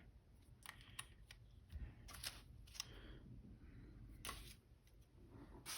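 Near silence broken by a few faint, sharp clicks and taps of small metal parts being handled and fitted into the Canon A-1's power switch assembly.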